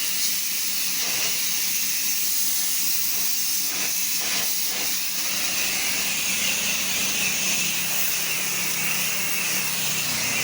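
Pressure washer spraying water in a steady hiss, with the machine's engine humming steadily underneath.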